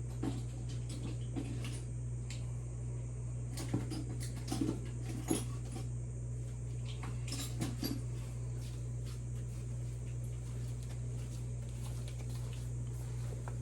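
Hand wrench working the small nuts on a motorcycle's front axle and fork: scattered light metal clicks and clinks, busiest in the first half, over a steady low hum.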